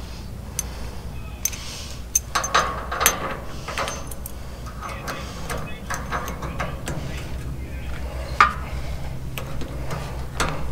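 Metal clinks and knocks of an 8-inch solid rubber wheel's metal hub being worked onto its axle rod by hand. The sharp taps are scattered, with a cluster a couple of seconds in and the loudest one about eight seconds in, over a steady low hum.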